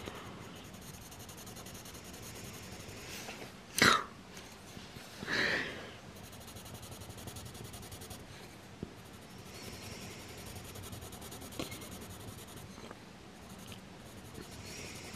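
Caran d'Ache Luminance coloured pencil scratching softly on paper during colouring, with a sharp knock about four seconds in and a short breathy sound a moment later.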